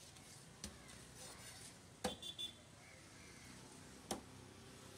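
Heavy cleaver chopping shark meat on a wooden block: three sharp chops about half a second, two seconds and four seconds in. The middle chop is the loudest and is followed by two lighter knocks with a short clink.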